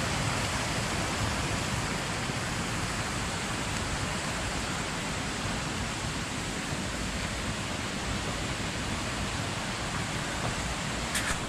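Small mountain waterfall cascading over rocks into a pool: a steady rushing of water.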